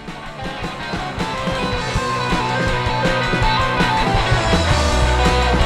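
Outro music: guitar-led rock with a steady beat, swelling up over the first couple of seconds, with a heavy bass coming in near the end.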